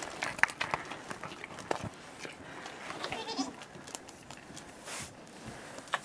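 A goat bleats briefly about three seconds in, amid rustling and light knocks as goats move about in hay.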